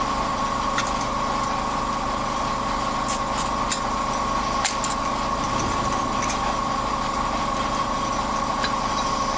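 Belt-driven milling machine spindle running steadily with a constant whine, not cutting, with a few light metal clicks.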